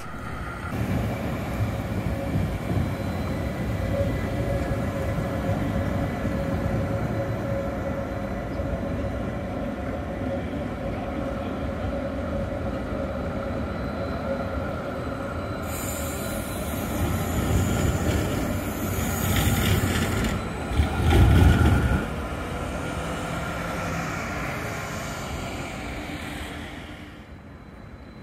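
Stadler Variobahn low-floor trams running on street track: a steady rolling noise with a faint steady whine. It grows louder from about 16 to 22 seconds in, with a heavy low rumble just after 21 seconds, then fades near the end.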